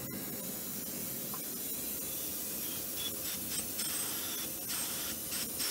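Nitrogen hissing steadily out of open copper refrigerant lines as they are purged, with a few light handling clicks in the second half.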